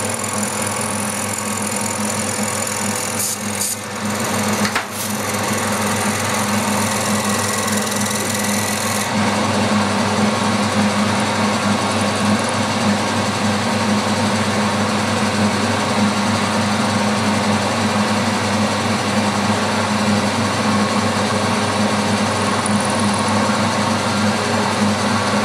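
Milling machine spindle running steadily while a counterbore is fed down into an aluminium pulley, cutting a 20 mm deep counterbore. A few sharp knocks come about four seconds in.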